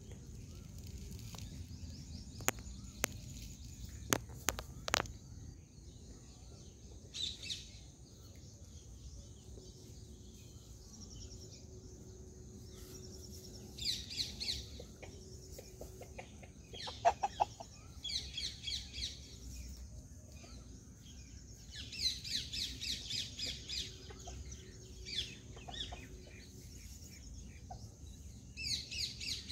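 Chickens clucking now and then, with small birds chirping in quick high-pitched runs several times. A few sharp clicks sound a few seconds in.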